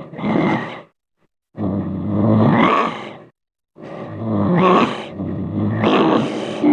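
A series of short, pitched voice-like creature cries in sound-effect clips, each cut off abruptly with a gap of silence before the next: one ends just under a second in, another runs from about 1.5 to 3.3 seconds, and a longer one follows to near the end.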